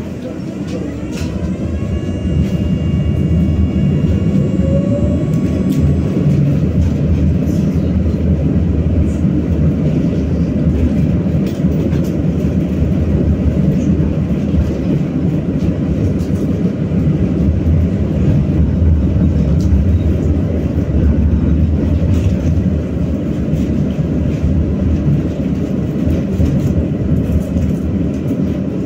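BKM-60102 tram running on its rails, heard from on board: a steady low rumble of wheels and running gear, with an electric whine rising in pitch over the first few seconds as it gathers speed.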